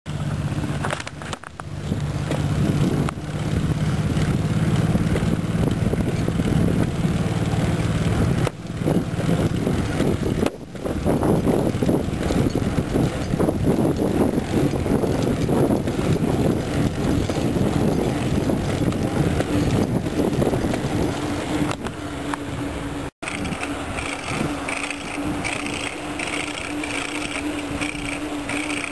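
Bicycle being pedalled in second gear, with a strange knocking from the left side of the drivetrain that can be felt through the pedals. Near the end the sound cuts to a rattle from the bike in first gear.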